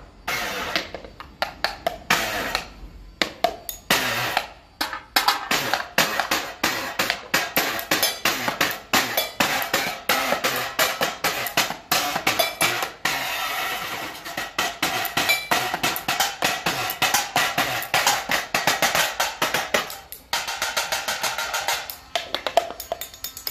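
Fast, steady beat of sharp little hits played with sticks on found objects: metal tins and bowls, drink cans, glass jars and plastic tubs, a tiny homemade drum kit. The hits run almost without a break, with short stretches of denser, continuous rattle now and then.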